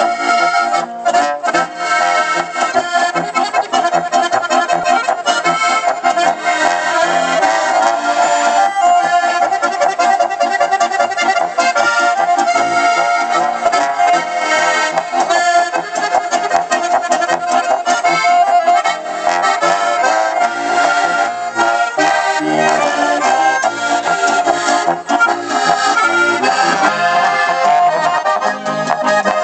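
Styrian button accordions (Steirische Harmonika) playing a lively Alpine folk tune, the melody and chords running without a break.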